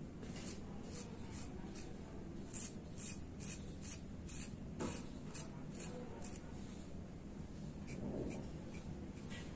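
A double-edge safety razor blade scraping through stubble on a lathered upper lip in a rapid series of short strokes, about two or three a second, thinning out near the end.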